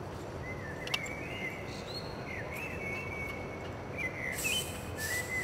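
A bird singing a run of thin, sliding whistled notes over light wind rumble. Near the end come two short hisses as the cap of a Diet Coke bottle is twisted open and the gas escapes.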